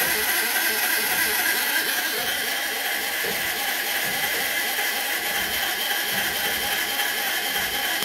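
Hand-cranked oil lubricator on a 1954 Wichmann two-cylinder two-stroke diesel being turned over and over to pre-lube the engine before starting, over a steady loud hiss with a few high steady tones.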